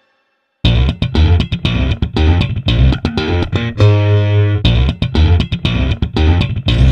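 Rock music: an electric guitar and bass riff of sharp, rhythmic chugs that starts after a brief silence, with one held chord in the middle.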